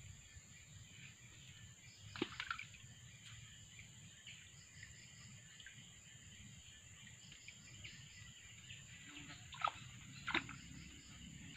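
Quiet flooded-forest ambience with faint chirping of insects and birds, and a few soft water splashes from a person moving in thigh-deep water, about two seconds in and twice near the end.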